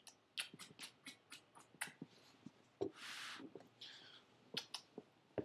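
Quick, repeated kissing smacks of lips on a small dog, about four a second, then a short breathy rush of air about three seconds in and a few more smacks near the end.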